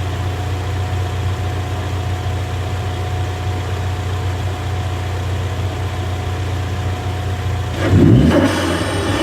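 2015 Ford Mustang EcoBoost's 2.3-litre turbocharged four-cylinder, fitted with a Roush cold air intake, idling steadily, then revved briefly about eight seconds in.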